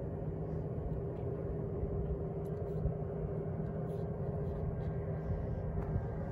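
Steady low diesel engine drone with a constant hum, most likely the train's locomotives heard from a distance before they come into view.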